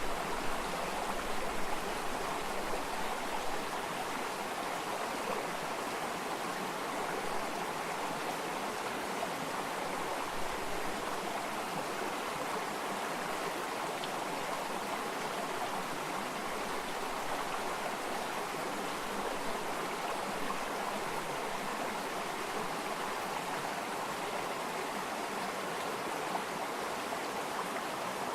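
Flowing water: a stream running steadily over stones, a continuous rushing and burbling.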